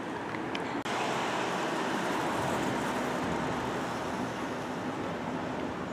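Steady road traffic noise, a vehicle going by; it swells about a second in and eases off slowly.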